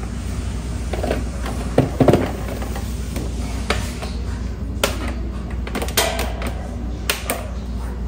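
Scattered clicks and knocks of a plastic table fan's housing and wire guard being handled and set down on a workbench, over a steady low hum.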